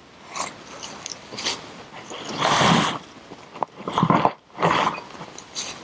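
A climber's forceful grunts and hard exhalations of effort, coming in short bursts as he pulls through moves, the longest and loudest about two and a half seconds in.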